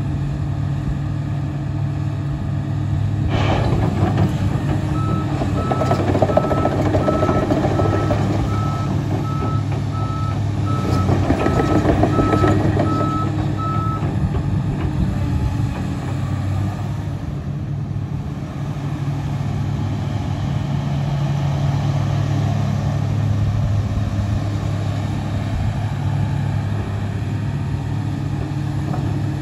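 Komatsu PC350LC-8MO track excavator's diesel engine running steadily under hydraulic load as the boom, arm and bucket are worked. From about five seconds in, the machine's motion alarm beeps at one pitch for about nine seconds, and there are louder surges of hydraulic and mechanical noise at about three to four seconds and again around seven and twelve seconds.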